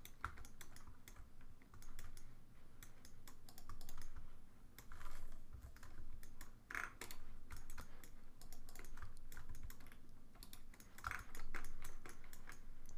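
Computer keyboard keys tapped in short irregular runs of clicks.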